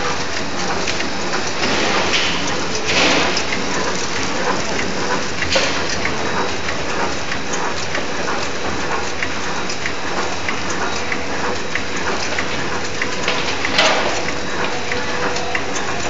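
Bread packaging machine running: a steady, dense clatter of many small clicks under a faint steady hum, with a few louder crackles.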